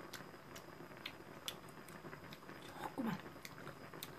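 Faint chewing and mouth clicks from someone eating a hot mouthful of dumpling soup, with a brief low falling murmur about three seconds in.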